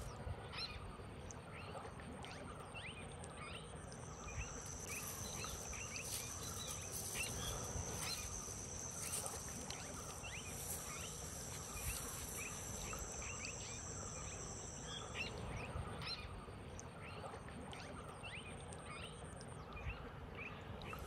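Rural outdoor ambience of animal calls: many short chirps, a few each second, over two steady high-pitched drones. One drone stops about fifteen seconds in and the other near twenty seconds.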